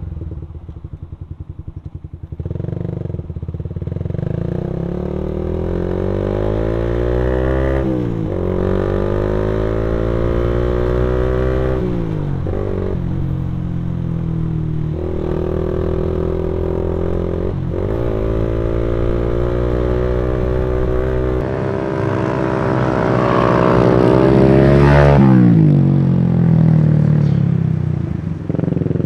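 Suzuki Satria F150's fuel-injected single-cylinder engine running through an R9 Mugello racing exhaust, accelerating through the gears: the exhaust note climbs in pitch and drops back at each upshift, several times over. Near the end the note swells to its loudest and then falls away.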